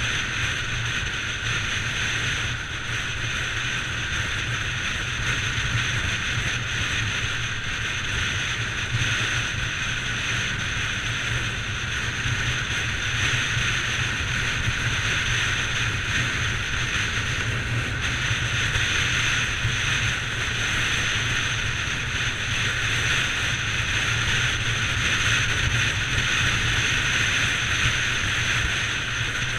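Bajaj Pulsar 200 NS motorcycle riding at a steady speed: the single-cylinder engine runs evenly under a constant rush of wind on the microphone.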